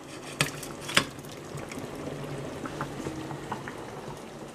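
A pot of chickpea stew simmering with a steady bubbling as pieces of soaked salt cod are tipped in from a glass bowl, with two light clicks about half a second and a second in.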